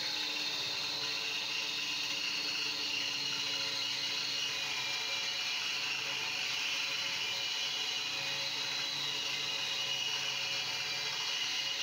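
Handheld electric power tool running steadily while pressed against a metal part: a continuous whir with a high hiss and no change in speed.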